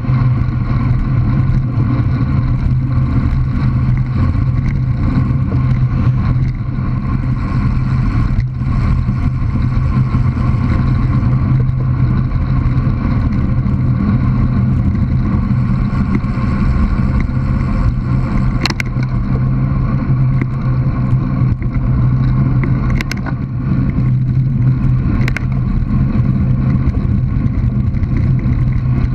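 Steady rumble of wind and road vibration picked up by a bicycle-mounted GoPro action camera in its housing while the bike rolls along a tarmac lane. A few brief clicks come through in the second half.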